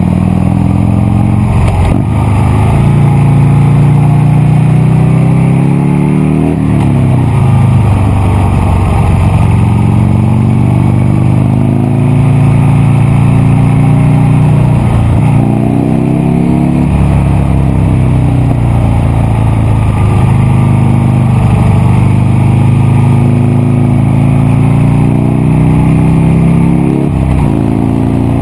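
Buell Lightning XB9SX's V-twin engine running under load through its exhaust, the revs climbing and dropping back several times as it pulls through the gears.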